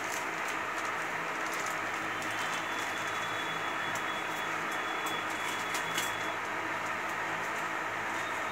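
Steady background noise with a faint low hum and a few light clicks, and a faint high whine through the middle.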